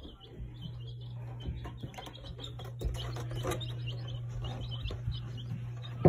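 Baby chicks peeping: a run of short, high, repeated chirps over a steady low hum.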